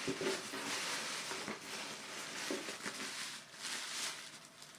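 Soft, continuous rustling and crinkling of bath-bomb packaging being handled close to the microphone.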